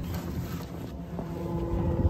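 Wind rumbling on the microphone while split firewood is handled, with a steady hum setting in just over a second in.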